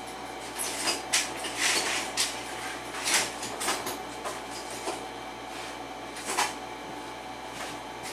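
Irregular clicks, taps and short scrapes of small hard metal objects being handled at a workbench, a cluster in the first half and a last click past six seconds.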